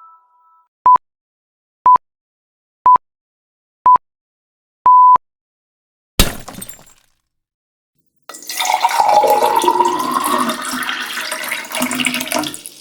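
A run of sound effects: four short beeps of one pitch a second apart and a longer fifth beep, like a countdown timer. Then a single sharp crack about six seconds in, and from about eight seconds a dense, noisy effect lasting about four seconds.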